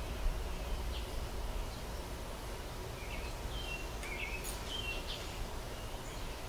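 Scattered short, high bird-like chirps, several close together about halfway through, over a steady low background rumble.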